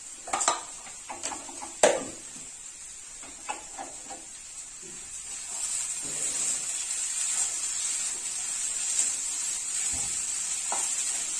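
A few sharp plastic clicks and clatters in the first two seconds as a spice container and spoon are set down and closed. Then vegetable stuffing sizzles in a non-stick frying pan while a spatula stirs it, the sizzle growing louder about five seconds in.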